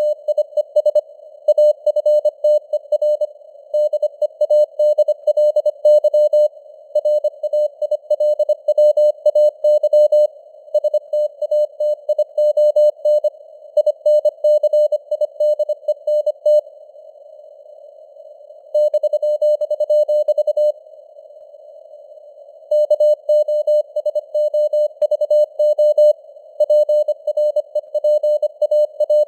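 Morse code (CW) sent at 25 words per minute: one steady-pitched tone keyed rapidly into dots and dashes, over a narrow band of hiss like a radio receiver. There are two pauses of about two seconds past the middle.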